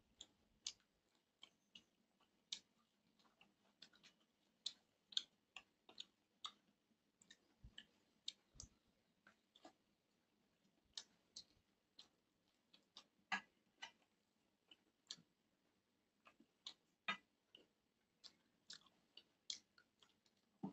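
Quiet eating sounds: fingers mixing rice and duck curry on a steel plate, along with chewing, heard as sparse, irregular soft clicks, about one or two a second.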